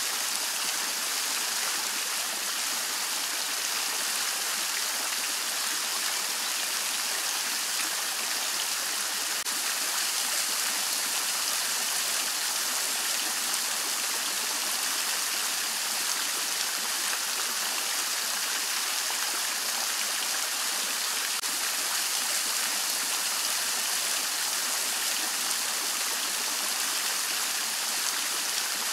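Three-tier Henri Studio Renaissance fountain running: water spills steadily off the scalloped tier edges and splashes into the basin below, giving a continuous, even splashing hiss.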